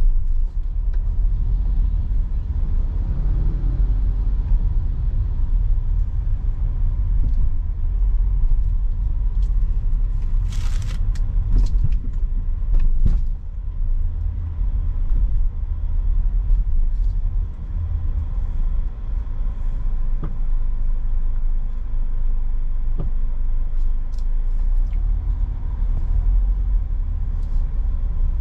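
Low, steady rumble of a Daihatsu Xenia's engine and tyres, heard inside the cabin while driving slowly. There is a short hiss about ten seconds in and a few faint clicks.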